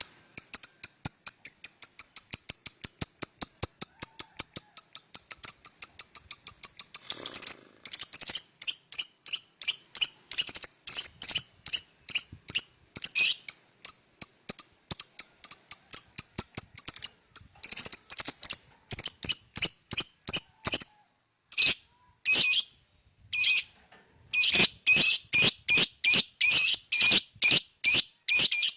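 Fischer's lovebird chirping shrilly: a fast, even run of high chirps, about six a second, for the first seven seconds or so, then shorter irregular bursts of chirps broken by brief pauses.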